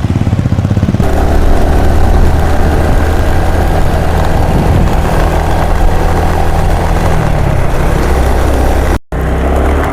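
Honda XRM 125 Fi's single-cylinder four-stroke engine running steadily while riding. Its pitch falls near the end as the bike slows, then the sound cuts out for a moment.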